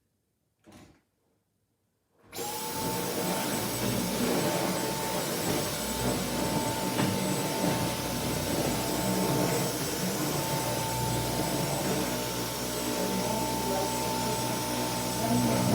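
A Dyson vacuum cleaner switches on about two seconds in and runs steadily, with a high whine over the motor's hum.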